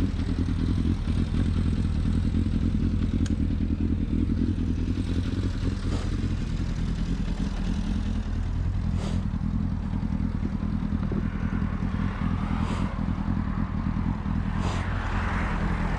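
1999 Yamaha FZS600 Fazer's inline-four engine idling steadily, just started after a wash. A few sharp clicks and some clatter in the second half come from the seat being unlatched and lifted off.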